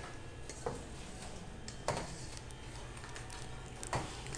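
Spatula scraping and knocking against a stainless steel mixing bowl while cake batter is portioned into aluminium foil loaf pans: a few light, separate clicks and knocks over a low steady hum.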